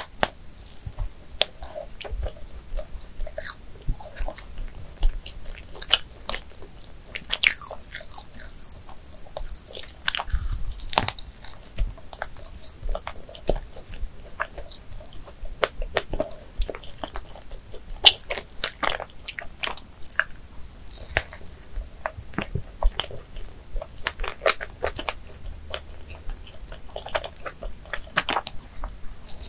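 Close-miked eating sounds: a bite into a Krispy Kreme doughnut topped with whipped cream and fresh strawberries, then chewing with a steady run of small, irregular clicks and crackles.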